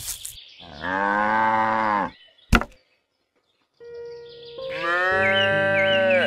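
Cow mooing twice, each a long, drawn-out call of well over a second, with a single sharp click between the two moos.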